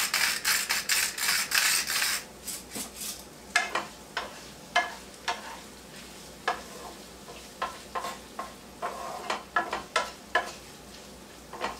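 Hand-cranked pepper mill grinding black peppercorns: a fast run of gritty clicks for about two seconds. Then a wooden spoon stirring ground beef and onion in a skillet, with scattered clicks and scrapes against the pan over a faint sizzle.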